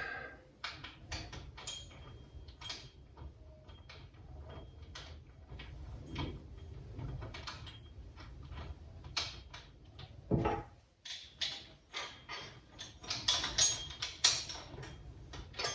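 Irregular small clicks and taps of metal and plastic parts being handled as a grinding disc and flange nut are fitted onto an angle grinder's spindle. There is a heavier knock about ten seconds in, and the clicking grows busier near the end.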